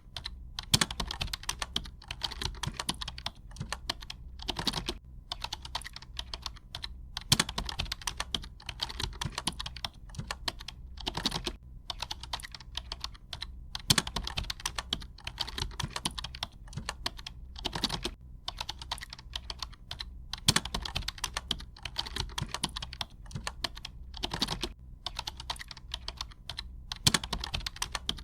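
Typing on a computer keyboard: rapid runs of key clicks broken by short pauses, with a noticeably louder keystroke every several seconds.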